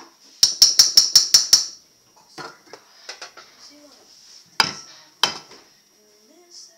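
A spoon knocking against the rim of a ceramic slow-cooker crock: six or seven quick sharp taps in about a second, then scattered lighter clicks and two more sharp knocks.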